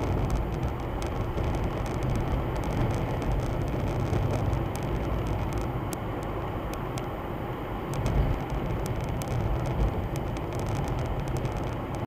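Car cabin noise while driving, picked up by a dash camera's microphone: a steady low rumble of engine and tyres on a snowy road, with scattered sharp clicks throughout.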